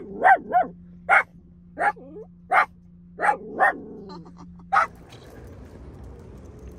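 A miniature dachshund puppy barking in sharp, loud bursts, about nine barks in the first five seconds, some in quick doubles, over a steady low hum inside the car. The barking stops about five seconds in, leaving a faint even hiss.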